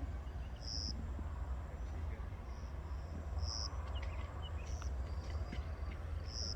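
Short high insect chirps every second or two over a steady low rumble.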